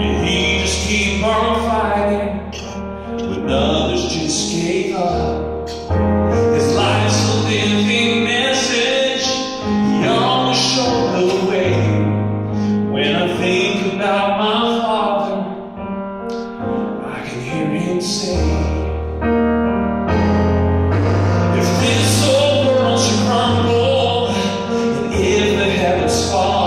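A man singing a slow ballad live, accompanied on an electronic keyboard with piano-like chords and sustained bass notes that change every few seconds.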